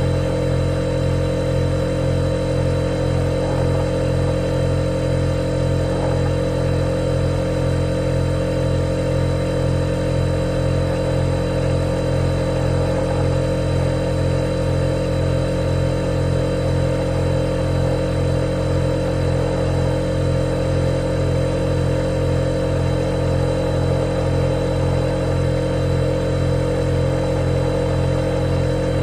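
Refrigerator compressor running, a steady, unchanging low hum with a faint high whine above it.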